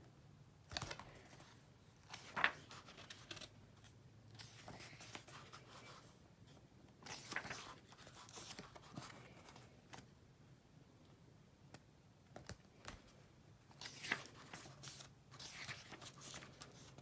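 Pages of a paperback book being turned and handled: soft, scattered paper rustles and brushes, a few at a time with short quiet gaps between them.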